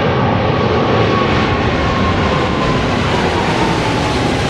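Boeing 777-300 twin jet engines at takeoff power as the airliner climbs out and passes overhead: a loud, steady roar with a thin whining tone that slowly falls in pitch as it goes by.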